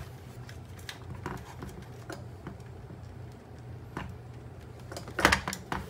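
Scattered light clicks and knocks of a Shark Ion robot vacuum's hard plastic chassis and wiring being handled as wires are fed through it, with a louder cluster of knocks about five seconds in.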